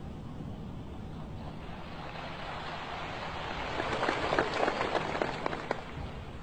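Audience applause in a large hall, swelling from a low murmur to many sharp claps about four to five and a half seconds in, then dying away.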